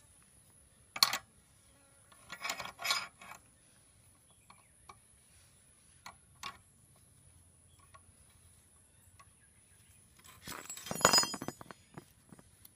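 Metal clinks and rattles of a scissor jack and its steel crank rod being handled: a sharp clink about a second in, a few clinks a second or two later, and a quick flurry of clinks near the end.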